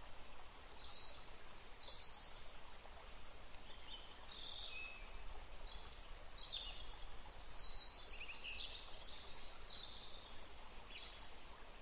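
Small birds chirping and singing, many short high calls and trills overlapping, thicker in the second half, over a faint steady outdoor background hiss.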